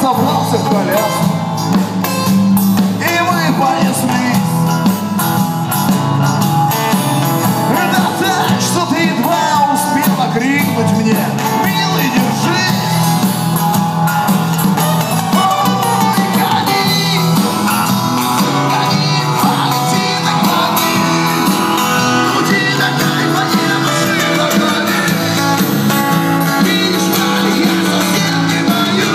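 Live band playing a blues-rock song on acoustic guitars, electric bass guitar and drums.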